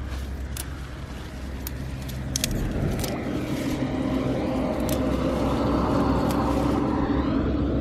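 A car going past, its engine and tyre noise rising from about two and a half seconds in and staying up to the end. Under it, scattered snaps and rustles of watercress stems being pulled by hand.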